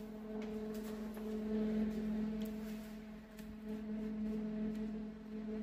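Microfiber rag wiping around the oil filler opening: faint scuffs and small clicks over a steady low background hum.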